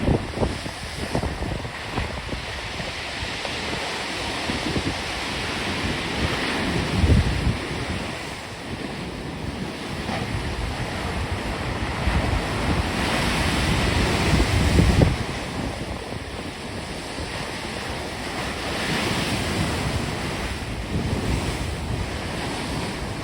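Storm waves breaking and surging, with strong wind buffeting the microphone; heavier waves hit about seven and fifteen seconds in.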